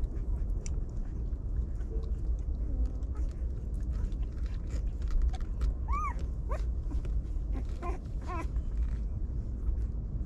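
Young puppies whimpering, with short high-pitched whines about six seconds in and again around eight seconds, over scattered small clicks and a steady low rumble.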